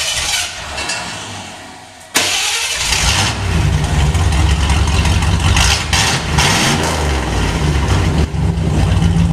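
Ford pickup's 351 High Output V8 cranking on the starter for about two seconds, then catching abruptly and settling into a loud, low running rumble through a single straight pipe with the muffler removed: the 'long pipe rumble'.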